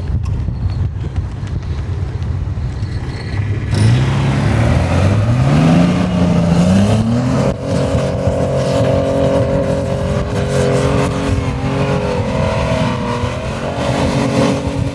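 Toyota off-roader's engine revving hard to drive out of a soft-sand hole on a dune, on aired-down tyres in low range. It runs low at first, then about four seconds in the revs climb in steps for a few seconds and stay high, wavering a little.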